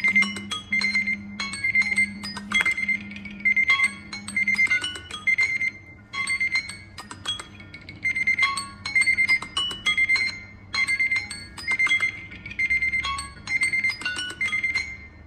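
Smartphone alarm tones ringing together: a short high beep repeating about twice a second over a looping chime-like plucked melody.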